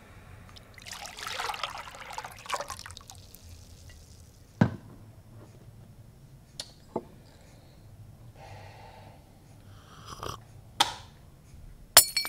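Liquid poured from a vacuum jug into a mug for about two seconds, then a series of sharp knocks and clunks as the jug and mug are set down on a wooden counter.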